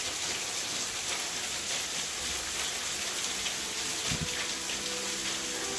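Steady recorded rain falling, a dense even hiss. About halfway through, faint sustained musical notes begin to come in under the rain.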